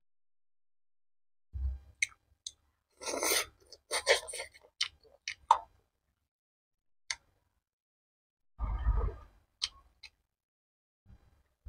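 Close-miked chewing of boneless chicken feet: sharp mouth clicks and short wet, crunchy bites in irregular bursts, with silent gaps between.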